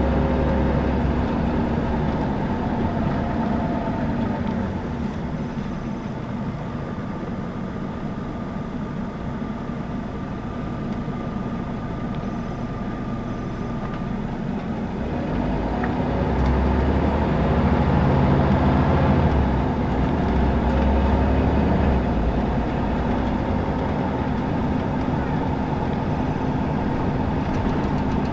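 Scania L94UB 6x2 city bus heard from inside: the diesel engine drones low and eases off, then pulls harder again from about halfway with its revs rising, and runs steadily to the end.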